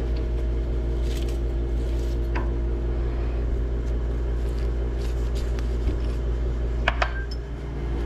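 A few light metallic clinks and taps from metal chips and tooling being handled at a stopped metal lathe, the sharpest near the end, over a steady low hum.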